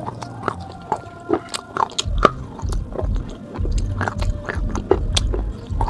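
Teeth biting and crunching pieces off the rim of a dry, unglazed clay pot, a dense run of sharp crackles. From about two seconds in, low dull thuds of chewing the crumbly baked clay join them.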